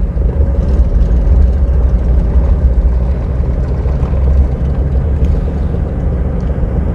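Car driving along a paved road: a steady low rumble of engine and road noise.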